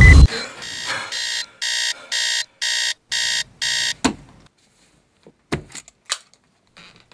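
A loud rumble cuts off abruptly right at the start. A digital alarm clock then beeps in regular pulses, about two a second, until a hand slaps it silent about four seconds in with a sharp knock. A few soft knocks follow.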